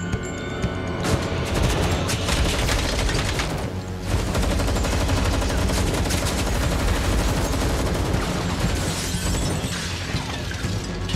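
Rapid, sustained gunfire over a film score's low, steady music. The shots break off briefly about four seconds in and thin out near the end.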